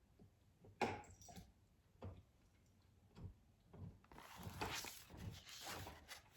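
Faint handling of a picture book: a sharp click about a second in, a few soft knocks, then a paper rustle near the end as a page is turned.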